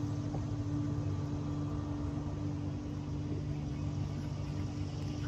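Electric trolling motor humming steadily as it runs.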